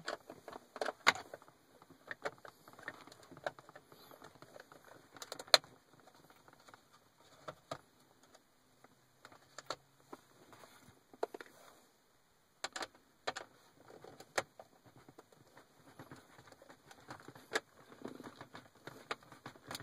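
Phillips screwdriver turning out screws from a plastic cup holder housing, with scattered clicks and light knocks of hard plastic parts being handled.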